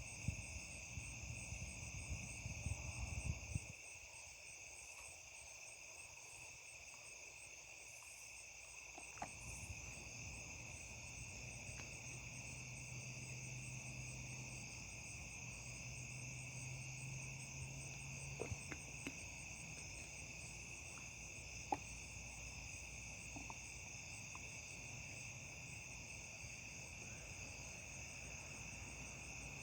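Crickets chirping in a steady night chorus at more than one pitch, one of them a fast pulsing trill. Low rumbling with a few knocks fills the first few seconds.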